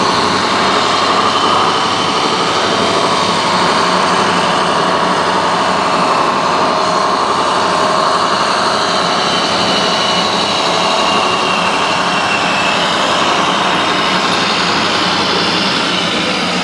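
Radio-controlled scale construction trucks running: a steady mechanical drone of engine-like sound and motor whine, its pitch slowly drifting in the second half.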